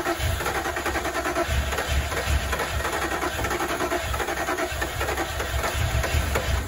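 1986 Ford Mustang V8 running unevenly on its first cold start after winter storage, its low exhaust pulses coming in irregular uneven clusters.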